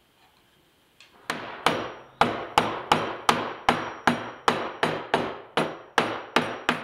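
A mallet striking a black cherry rail about fifteen times in quick, even succession, roughly three blows a second starting about a second in, driving the rail down onto the tenons of a row of spindles. Each blow is a sharp wooden knock with a short ring.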